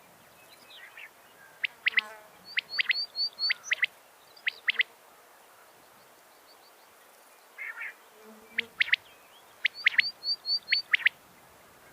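Female quail calling in two bouts a few seconds apart. Each bout is a series of sharp, clipped high notes with a quick run of five short chirps in the middle, and a soft raspy note comes just before each bout.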